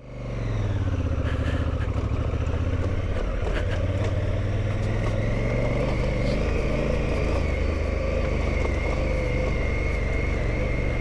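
2017 Honda Africa Twin's parallel-twin engine running steadily under way on a rough dirt track, with road and wind noise. About halfway in, a thin steady whine joins it and holds to the end.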